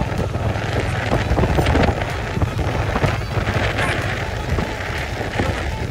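Motorcycle riding slowly along a dirt track: the engine runs steadily underneath a rough crackling noise of the tyres over loose dirt and gravel.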